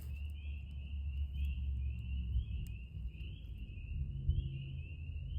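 Chorus of spring peepers: short rising peeps repeated a couple of times a second without pause, over a steady low rumble.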